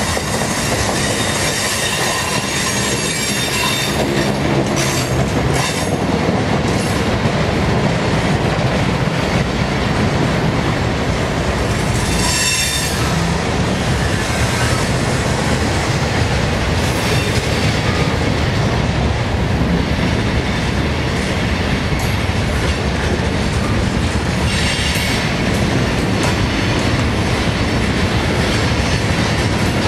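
Freight cars rolling slowly past: steel wheels running on the rails in a steady rumble, with a thin high squeal from the wheels at times.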